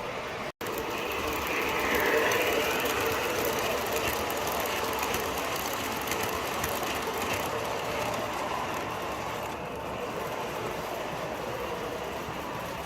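MTH O-scale R-40 subway model train running on three-rail track, its wheels and motors clattering along with the model's onboard subway running sounds. The sound cuts out for an instant just after the start, then runs on steadily, a little louder a couple of seconds in.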